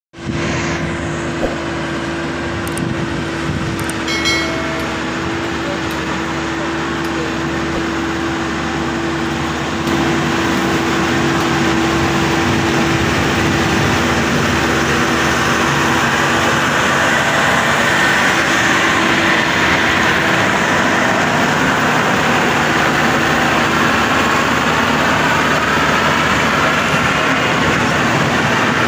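Maxxi Bimo 102 tracked combine harvester's engine running steadily as the machine drives along, with a thin steady whine through the first half; it gets louder about ten seconds in as it comes closer.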